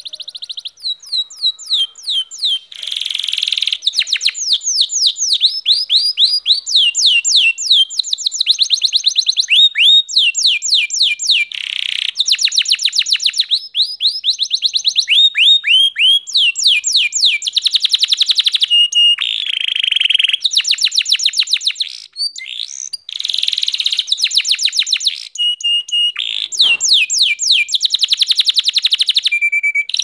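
Domestic canary singing a long, nearly unbroken song of fast trills: runs of quick, repeated downward-sweeping notes, many to the second, with a few short steady whistled notes between runs.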